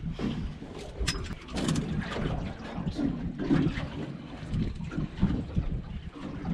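Wind on the microphone and water lapping around a small boat at sea, with scattered sharp knocks and clicks.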